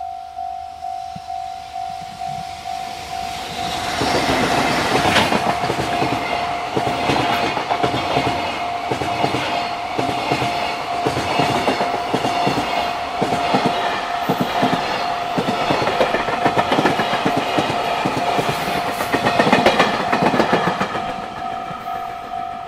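Japanese level-crossing warning bell ringing about twice a second while a long JR Freight train passes, its wheels clattering over the rails. The train noise comes in about four seconds in and fades near the end, leaving the bell ringing on.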